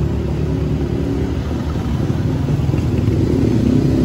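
Motor vehicle engine running with a steady low rumble, in the manner of a motorcycle or tricycle engine on the street.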